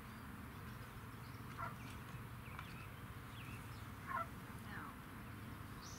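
Scattered short bird chirps, each falling in pitch, a few of them in quick pairs, over a steady low background noise.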